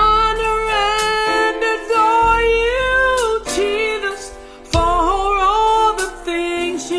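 A woman singing a slow gospel worship song in long held notes that bend and slide, over Yamaha electric keyboard chords and bass notes.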